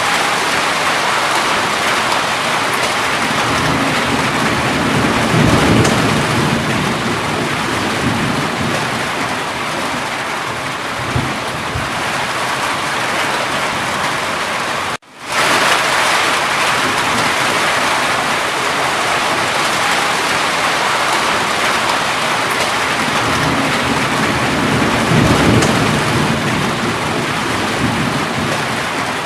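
Steady heavy rainfall hissing without a break, with two low rumbling swells, about five seconds in and near the end. About halfway through the sound cuts out completely for a split second, then resumes.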